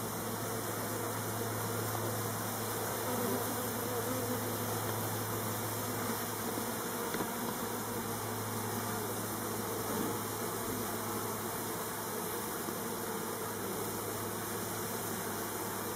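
A large mass of honeybees shaken off their combs into a box, buzzing as a steady low hum.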